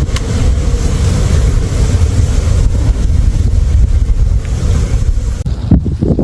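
Strong wind buffeting the microphone in a snowstorm: a loud, steady rumbling rush. It changes abruptly near the end as the high hiss drops away.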